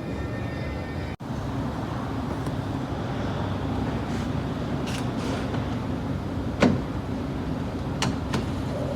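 A few sharp clicks and knocks from a car door handle and its parts being handled and worked loose, the loudest about two-thirds of the way through, over a steady low hum.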